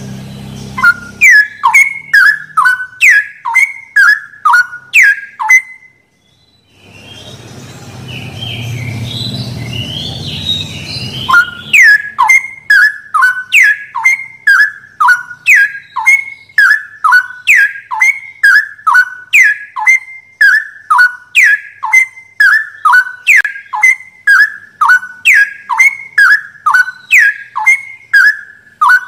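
Straw-headed bulbul (cucak rowo) song, a loud quick falling whistle repeated about twice a second. The calls break off near six seconds in, a rougher, noisier passage follows, and the whistles resume near twelve seconds.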